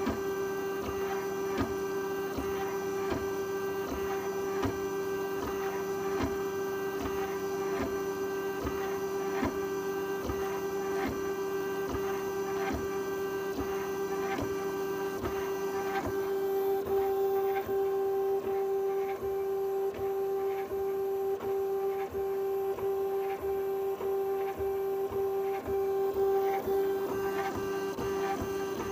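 3D printer printing fast at 1/32 microstepping: its stepper motors whine and tick with each quick change of direction as the print head darts back and forth, over a steady hum. Close-miked from just under the print bed, which makes it sound louder than it is.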